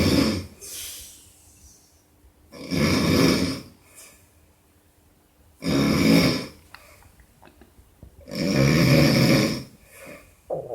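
A drunk man snoring loudly: three long snores about three seconds apart, with quiet breathing between them.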